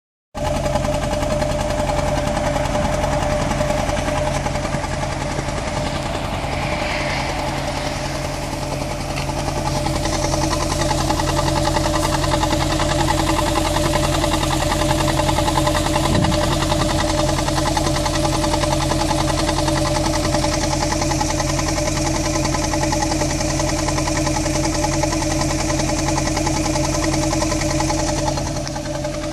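A 2001 Ford Fiesta's 1.25 Zetec four-cylinder petrol engine idling roughly and unevenly. It is missing on one cylinder: cylinder 2 has no compression and the others very little.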